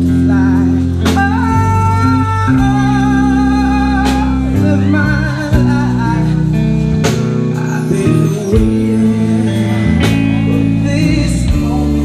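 Live indie blues band playing: electric bass holding low notes under drums and guitar, with a singer's voice.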